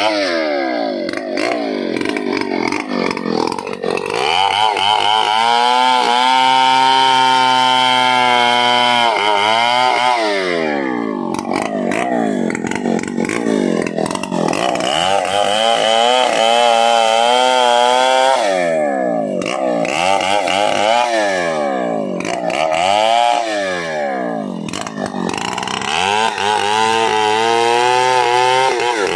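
Stihl 070 two-stroke chainsaw engine being revved repeatedly: it climbs to high revs and holds there for a few seconds at a time, then drops back and rises again several times.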